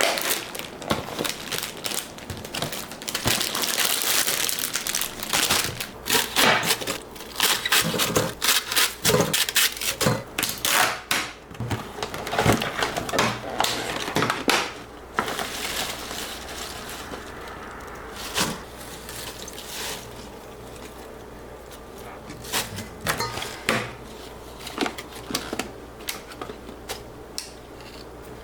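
Kitchen handling sounds: a run of clicks, knocks and crinkling, busy through roughly the first half and sparser after that.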